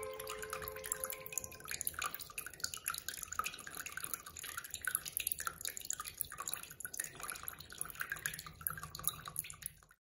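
Small tabletop waterfall: water falls from a rock-arch decoration into a shallow tank of water and splashes in quick, irregular drips. The sound fades out at the very end.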